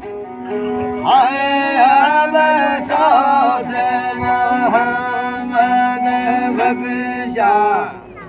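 A man singing a Gojri bait in a wavering, ornamented voice over a bowed folk fiddle that keeps a steady drone. The voice comes in about a second in and breaks off shortly before the end.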